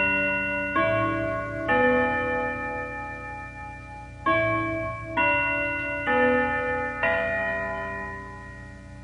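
Clock-style bell chime: slow notes struck one after another, each ringing on and fading, the first phrase ending about two seconds in, then after a pause a second phrase of four notes, the last left ringing.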